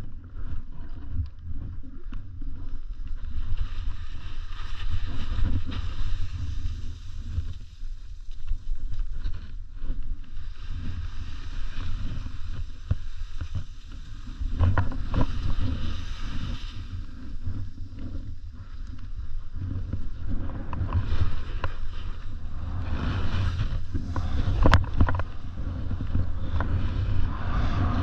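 Wind buffeting a body-worn action camera's microphone: an uneven low rumble with a shifting hiss above it, and one brief sharp click near the end.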